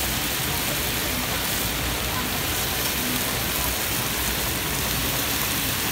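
Boneless chicken thigh skewers sizzling on a hot grill plate, a steady hiss.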